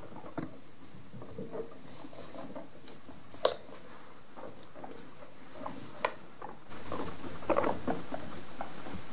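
Guinea pigs scampering over a blanket-covered floor: a soft patter of small feet with scattered short ticks and a few sharp clicks, the loudest about three and a half seconds in.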